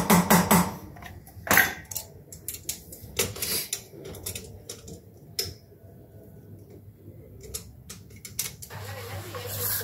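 Irregular metallic clicks and clinks of hand tools on wheel nuts as a road wheel is taken off a minibus. A low hum comes in near the end.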